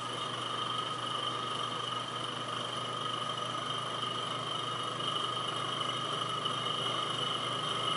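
Vacuum pump running steadily, pulling air out of a vacuum chamber, with an even whine of two steady tones over a hiss.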